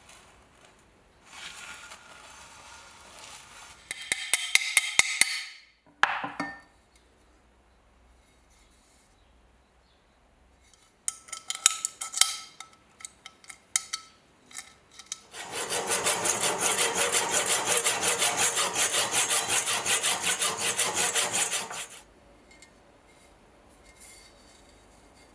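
Hand rubbing and scraping on a rust-pitted steel bayonet scabbard. It comes first in a few short bouts with clicks, then as about six seconds of fast, even back-and-forth strokes near the end.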